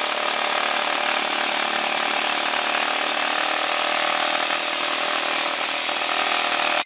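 Circular saw (Skil saw) running steadily at full speed, used as a vibrator against the board under freshly poured concrete paver molds to shake air bubbles out of the concrete. The sound cuts off suddenly near the end.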